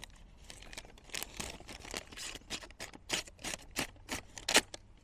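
Light, irregular clicks and rustles of a small pocket-knife blade being handled, with the sharpest click a little after four and a half seconds in.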